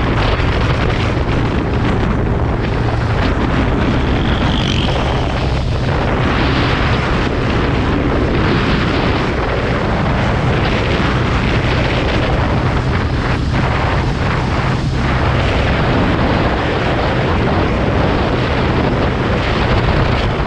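A vehicle engine runs steadily under heavy wind noise on the microphone. The low hum of the engine shifts about fifteen seconds in.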